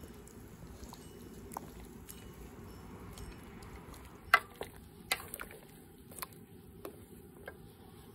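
Wild greens being swished and rinsed in a basin of water: a low steady sloshing with a few sharp splashes and drips, the loudest about four seconds in.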